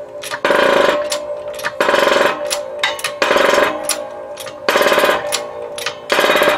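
12-ton hydraulic shop press worked by its hand-pump lever, slowly and steadily, to press a wheel bearing into its hub. There are five rattling pump strokes about a second and a half apart, with sharp clicks between them.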